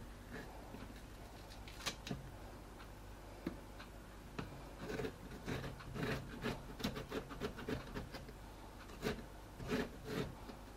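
Courgette halves being handled and set down on a plastic cutting board: scattered light taps and rubbing, a few at first, then a quick run of small knocks in the second half.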